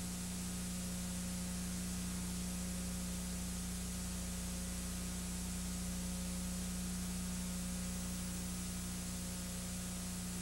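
Steady hiss with a constant low electrical hum and no other sound: the noise floor of a transfer of silent home-movie film.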